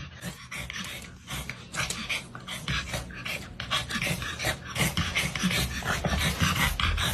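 A dog panting in quick, irregular breaths that grow louder toward the end.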